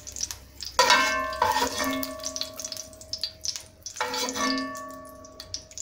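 Two metallic knocks of a kitchen utensil against the frying pot, about three seconds apart, each ringing on like a bell and slowly fading, over a faint sizzle of the oil.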